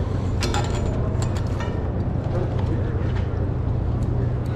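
A steady low motor hum with an even background rumble. Faint voices are heard briefly about a second in.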